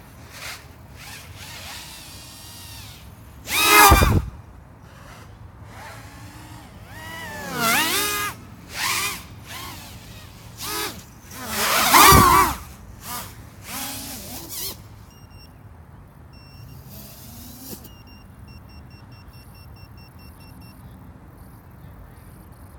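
Racing quadcopter drone flying passes through the gate course: the high whine of its electric motors and propellers rises and falls in pitch with throttle, loudest on close passes about 4 s and 12 s in. After about 15 s the drone is gone and only a faint steady background remains.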